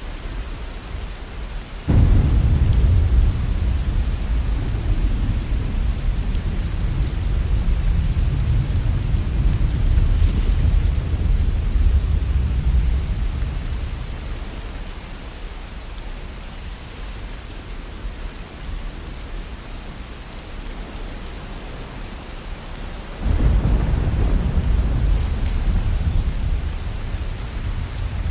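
Heavy rain falling steadily, with two peals of thunder: one breaks suddenly about two seconds in and rumbles away over some ten seconds, and another breaks near the end.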